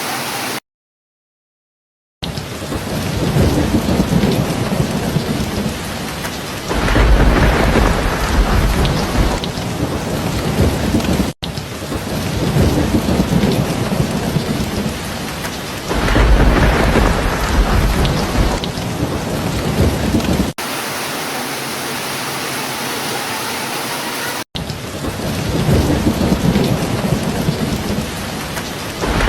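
Heavy rain falling in a thunderstorm, with low rolling thunder swelling three times. The track drops out to silence for about a second and a half near the start, and changes abruptly several times where rain recordings are spliced together.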